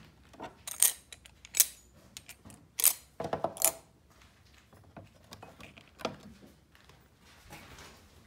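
Glass jar and small tools handled in a lidded box: a string of sharp clinks and rattles, with a quick run of clinks and a short ring around the middle, then a few quieter knocks.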